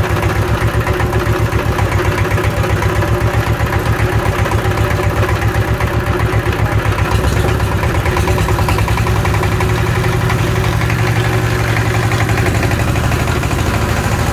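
Used Changchai 12 hp single-cylinder diesel engine running steadily with an even, rapid knocking beat; its low tone shifts about halfway through. The sound is very good, which the owner takes as a sign that the engine is in good condition and needs no work.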